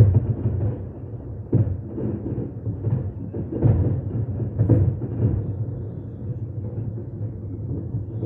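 Aerial fireworks exploding: a string of deep booms with a rolling low rumble between them, the bangs thickest in the first five seconds.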